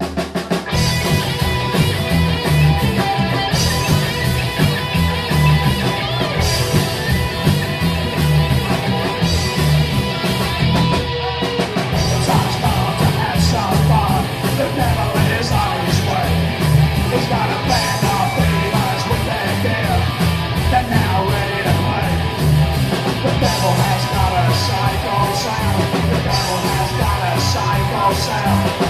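Live psychobilly band playing: slapped upright double bass, electric guitar and a driving drum beat, with a man singing. The band breaks off for a moment about eleven seconds in.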